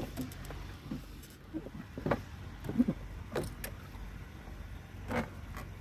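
Scattered knocks and clacks of handling in a small wooden boat as a caught fish is stowed and the line is worked. The sharpest come about two, three and a half, and five seconds in, over a low steady rumble.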